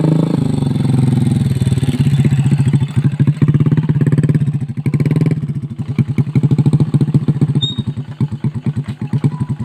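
Motorcycle engine running hard under load, its firing pulses evenly spaced. It eases off about five seconds in, then keeps pulsing.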